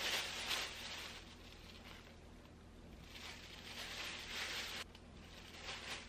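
A thin plastic bag crinkling and rustling as it is handled, with flour and peeled bananas inside to coat them. It comes in bursts, strongest at the start and again a few seconds in.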